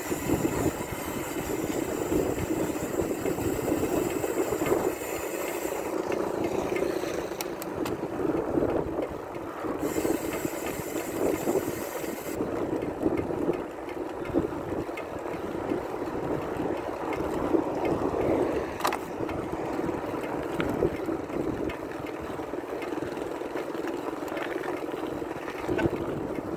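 Wind rushing over a camera microphone on a moving bicycle, mixed with tyre noise on the paved road: a steady rush with a sharp tick about two-thirds of the way through.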